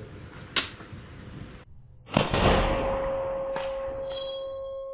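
A single suppressed shot from an AR-15 in .223 Rem fitted with a titanium STEEL HORDE QD-T suppressor, about two seconds in, with a long decaying tail. A steady ringing tone follows the shot and holds until near the end; the shooters put the ringing down to the suppressor.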